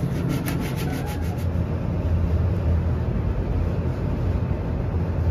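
Hand sanding block with coarse 80-grit paper being rubbed back and forth over body filler on a car's quarter panel: quick rasping strokes, about seven a second, stopping after about a second and a half. A steady low hum runs underneath.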